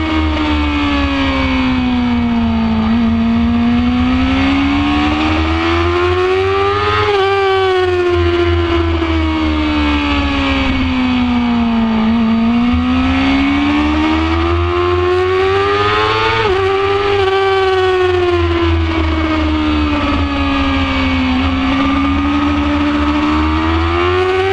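2006 Yamaha R6's 600 cc inline-four sport-bike engine at high revs on track, its note rising and falling three times as it accelerates and slows for corners, with sharp changes near 7 and 16 seconds in. Heavy wind rumble on the bike-mounted camera lies underneath.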